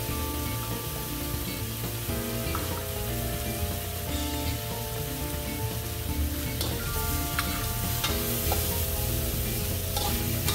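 Rabbit meat and onions frying and sizzling in a wok, with a metal ladle picked up and scraping through the pan in the second half. Background music plays alongside.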